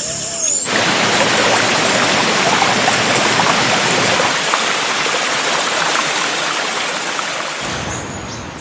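A steady, dense rush of water, the sound of a stream, waterfall or heavy downpour in a jungle ambience. It cuts in abruptly under a second in and fades out near the end, after a brief bird call at the very start.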